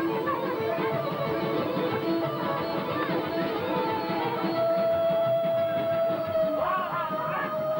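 Live band music from a folk orchestra playing at a party, picked up by a camcorder microphone among the guests. In the second half a single melody note is held for several seconds.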